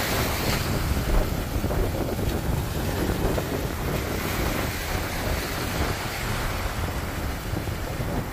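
Wind buffeting the microphone over the steady wash of small surf breaking along the shore.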